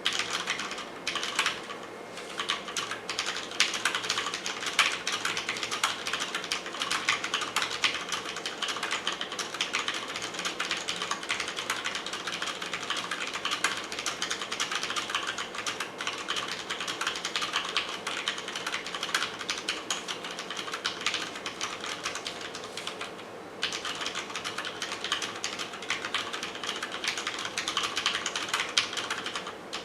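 Continuous fast typing on a Cherry MX Board 6.0 mechanical keyboard with Cherry MX Red linear switches: a dense stream of keystroke clacks, with one short pause about two-thirds of the way through.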